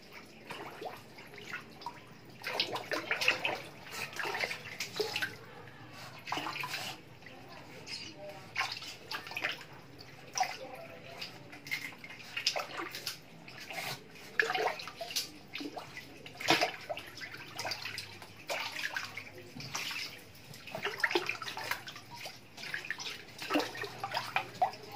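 An otter splashing and paddling in shallow water: irregular splashes and sloshes, one after another.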